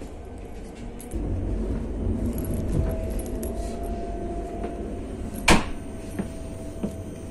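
Interior noise of a Czech Railways class 471 CityElefant double-deck electric unit: a low rumble that grows louder about a second in, then a steady whine. A single sharp knock comes about two seconds before the end, with light rattling and handling noise around it.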